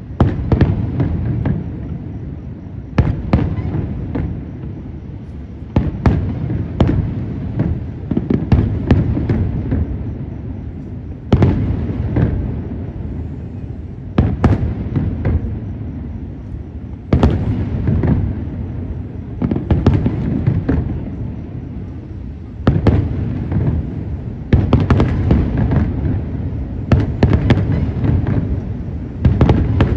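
Aerial fireworks going off in volleys: clusters of sharp bangs every few seconds, with a low rumble carrying on between the bursts.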